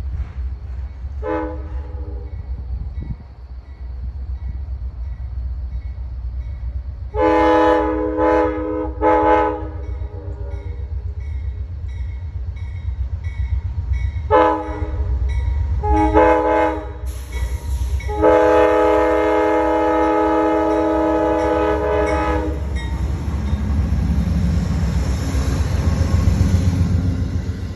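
Amtrak Crescent locomotive's multi-tone air horn played as a horn show: a brief blast, then a longer blast and a short one, two short blasts, and a long blast of about four seconds. The train's steady low rumble runs underneath and swells near the end.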